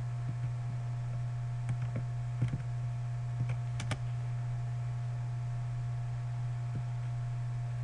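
Scattered computer keyboard keystrokes and mouse clicks, including a quick double click about four seconds in, over a steady low hum.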